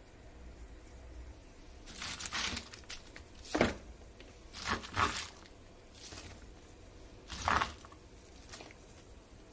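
Handfuls of chopped raw cabbage lifted out of a plastic colander and dropped into a plastic bowl: crisp rustling and crinkling of the leaves in a series of short bursts, starting about two seconds in.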